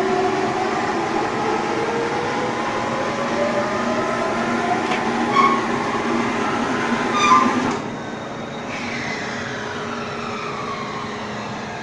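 Bagging baler machine running, a steady mechanical hum with whining tones that slowly rise in pitch and a few light clicks. About eight seconds in the sound drops abruptly to a quieter run, with tones falling in pitch.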